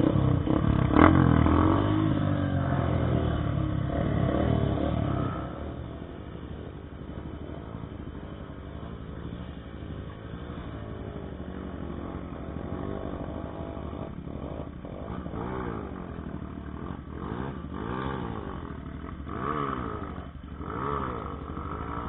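Motorcycle engine revving up and down, loudest for the first five seconds and then running quieter with repeated blips of the throttle. There is a sharp knock about a second in.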